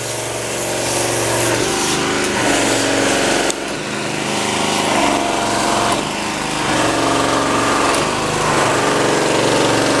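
Small petrol engine of a wheeled pressure washer running steadily, with the hiss of its water jet as the street and house wall are sprayed.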